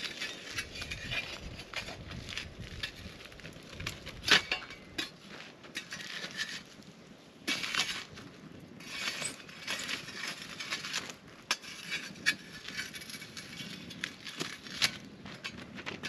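Wood being knocked, scraped and shifted in a stone campfire ring as burning logs and embers are poked and rearranged: irregular clacks and crunches, with one sharp knock about four seconds in standing out as the loudest.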